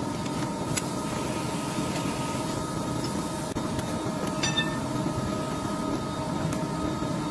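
Steady hum and noise of factory machinery with a few faint steady tones, and a light click or two.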